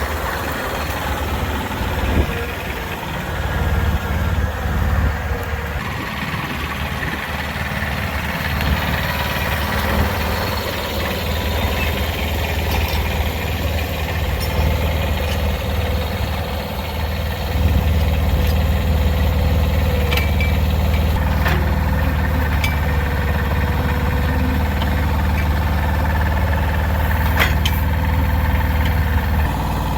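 Engine running steadily with a low hum, growing louder about two-thirds of the way through, with a few light knocks or clicks near the end.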